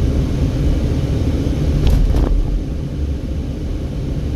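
Steady low rumble of a car driving slowly, with engine and tyre noise heard from inside the cabin. A brief click or tick comes about two seconds in.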